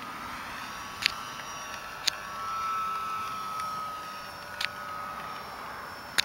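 Electric motor and propeller of an RC SE5a biplane whining steadily in flight, swelling as the plane passes about halfway through. Four sharp clicks sound over it.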